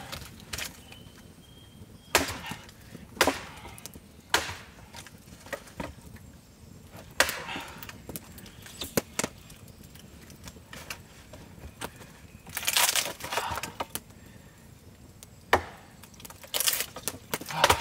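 Wood cracking and splintering as a split log is pried apart with a machete: a string of sharp single cracks, with longer tearing, crackling splits about seven, twelve and sixteen seconds in.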